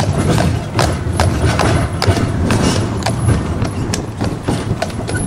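Hooves of a heavy draught horse clip-clopping at a walk on the road surface, about two strikes a second, over the steady low rumble of the horse tram rolling on its rails.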